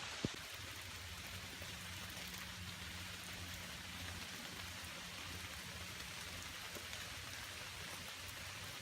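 Steady rain falling in woodland, an even hiss of drops on leaves and ground, with one sharp click about a quarter of a second in.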